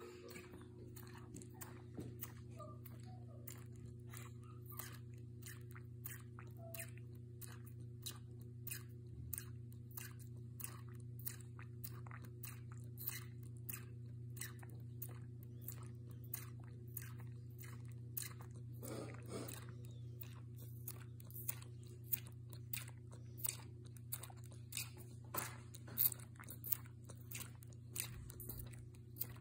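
Baby spider monkey sucking milk from a baby bottle: a steady rhythm of small wet sucking clicks, about two a second, over a constant low hum.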